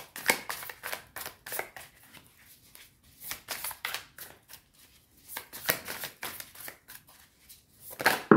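Tarot cards shuffled by hand, a run of quick papery flicks in bursts with short pauses between; the loudest burst comes near the end.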